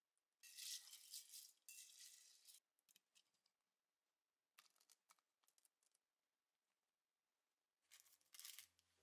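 Rice grains and water in a rice cooker's inner pot, being poured into and stirred, make a scratchy rattle for about two seconds, followed by a few faint clicks. Near the end, plastic wrap crinkles briefly.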